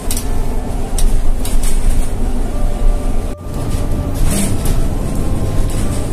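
City bus running, a steady low engine and road rumble heard from on board, with a few light rattles.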